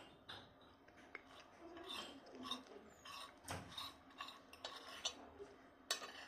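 Cutlery clinking and scraping on a plate in irregular small clicks, with a sharper clatter near the end.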